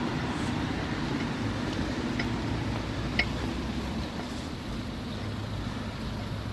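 Steady low outdoor rumble with a faint hum, as of road traffic, with two small clicks about two and three seconds in.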